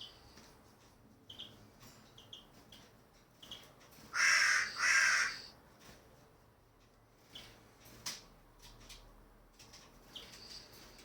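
A pet bird gives two loud, harsh calls back to back about four seconds in, among faint short chirps and light clicks.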